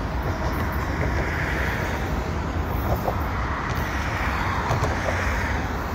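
Steady rumble of road traffic on the highway bridge beside the rail bridge, mixed with the low rumble of a CN double-stack freight train moving away, its rear GE locomotive trailing.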